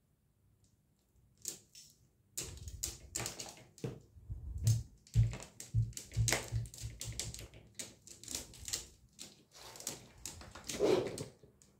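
A cat's claws catching and scrabbling on a window's mesh mosquito screen as it climbs, an irregular run of scratchy clicks starting about a second in, with dull thumps of the screen in its frame.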